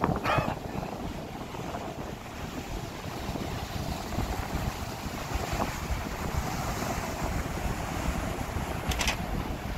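Wind buffeting the microphone over the steady rush of a ferry's wake churning alongside the hull. A brief rising sound comes right at the start, and a short high hiss near the end.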